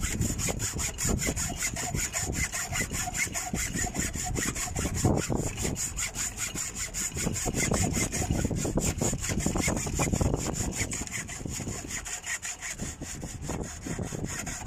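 Hacksaw cutting through a thick 120 mm² power cable in rapid, even back-and-forth strokes, stopping near the end as the blade comes through the cable.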